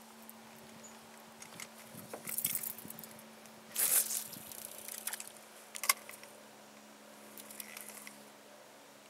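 Fishing rod and reel being handled in a boat: a few short rustles and clicks over a faint steady hum, the loudest a brief burst of noise about four seconds in and a sharp click near six seconds.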